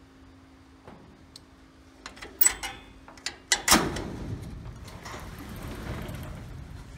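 A door being unlatched and opened: a few sharp clicks and knocks, the loudest about two and a half and three and a half seconds in, followed by a few seconds of rattling noise.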